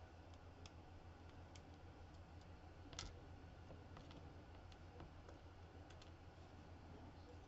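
Faint, scattered small clicks of the disassembled lock's metal pins and parts being handled, one a little louder about three seconds in, over a low steady hum.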